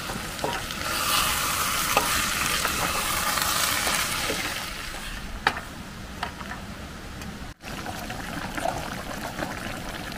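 Peas and potato curry sizzling in a pan on a portable gas stove while a wooden spatula stirs it, with a few short scrapes against the pan. The sizzle is loudest in the first few seconds, then dies down.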